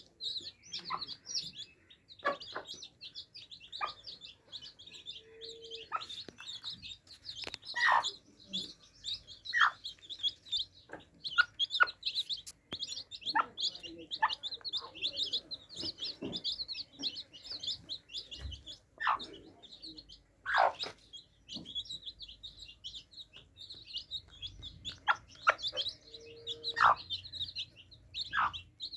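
A group of baby chicks peeping continuously in quick, high chirps, with scattered short taps and knocks among them.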